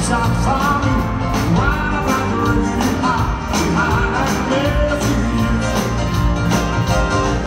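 Live rock music heard from the audience in a large hall: a singer over a band with a grand piano and a steady drum beat.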